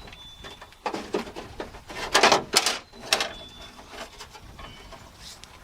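Handling noise from work on a van's rear hatch latch: a few short bursts of scraping and clattering of metal parts, the loudest about two seconds in, with a faint thin squeak near the start and again a little after three seconds.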